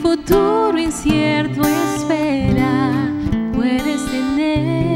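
A woman singing a slow Christian ballad, her held notes wavering, over acoustic guitar accompaniment.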